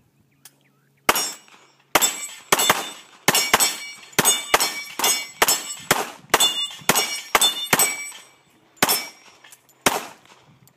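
Rapid handgun fire at steel targets: a string of about seventeen shots, roughly two a second, starting about a second in, each followed by the ringing clang of a struck steel plate.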